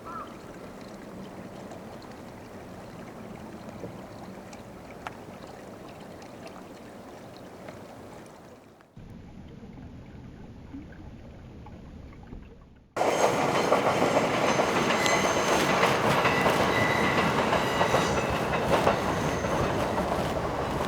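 Fuji Kyuko train running on the rails. A steady, quieter rumble gives way about thirteen seconds in to a much louder passage of the train, clattering, with thin high wheel squeal over it.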